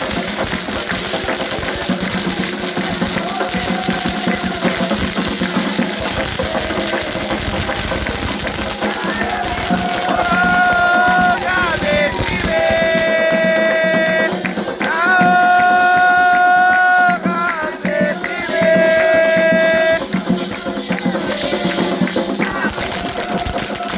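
Ritual drumming with a rattle, and a voice singing that holds several long notes near the middle.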